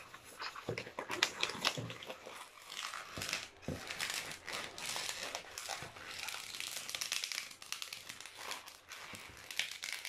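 Long latex modelling balloon being twisted and squeezed by hand into a small loop, the rubber rubbing and squeaking in short, irregular scrapes.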